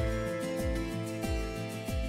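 Background music: calm instrumental track with sustained pitched notes over a steady, regular bass beat.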